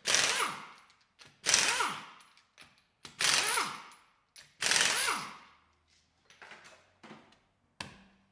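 Impact wrench spinning off the lug nuts of an Acura MDX rear wheel in four bursts of about a second each, each fading with a falling pitch. A few light knocks follow.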